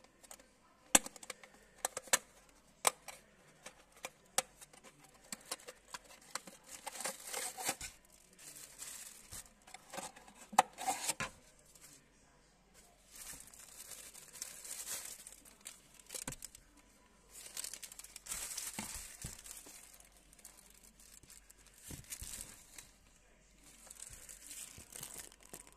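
Sharp clicks and snaps of a clear plastic sunglasses box being handled and opened, followed by repeated stretches of plastic wrapping and a paper leaflet crinkling and rustling as the contents are unpacked.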